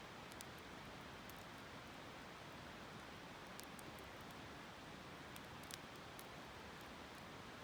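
Steady, faint rush of a flowing river, with scattered light crackles from a wood campfire.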